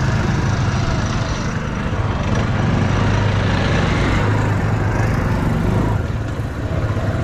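Engine of a homemade off-road trike running under throttle, pulling in first gear, with a short dip in loudness about six seconds in.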